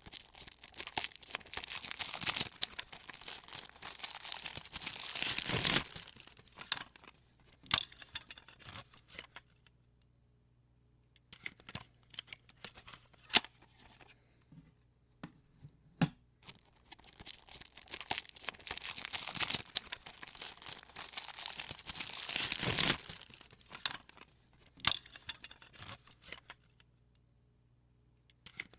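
Packaging being torn open and handled: two long tearing stretches of several seconds each, one at the start and one a little past the middle, with scattered clicks and rustles between them.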